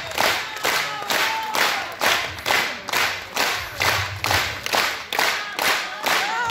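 Theatre audience clapping in unison in a steady rhythm of about three claps a second, with one pair of hands close by.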